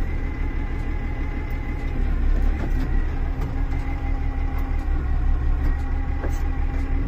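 Diesel engine of a Kalmar DCE 120-6 heavy forklift running steadily with a deep rumble while the truck is driven, with a faint steady high whine over it.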